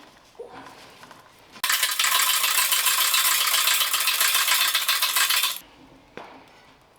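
A loud, dense rattling that starts suddenly about one and a half seconds in and cuts off about four seconds later, between faint clinks of handled metal.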